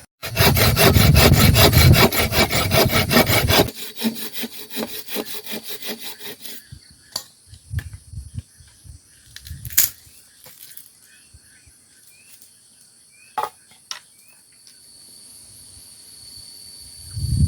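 Wood being sawn by hand: loud rhythmic rasping strokes for about three and a half seconds, then lighter strokes that stop after about six seconds. Insects buzz steadily behind it, with a few sharp clicks later on.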